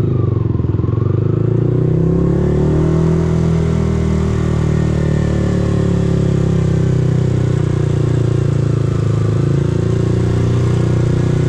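Yamaha R15M's 155 cc single-cylinder engine pulling away at low speed, the revs rising over the first couple of seconds and then holding steady as the bike cruises slowly.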